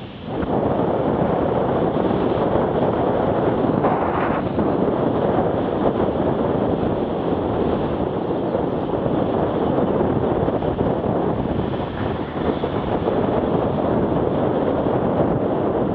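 Wind buffeting the microphone of a camera carried on a moving bicycle, a steady loud rushing noise.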